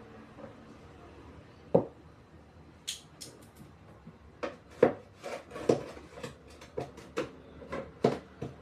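Hard objects being handled: a string of sharp, irregular clicks, taps and clatters, one about two seconds in and then many in quick succession through the rest.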